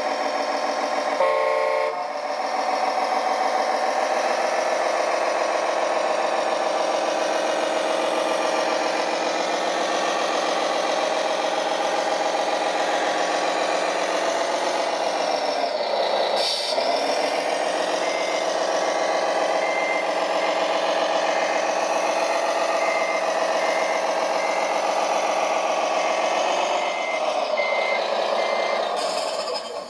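Diesel engine sound from a radio-controlled construction machine's sound module, running steadily with a brief dip in pitch about halfway through. From about two-thirds of the way in, a reversing beeper sounds about once a second.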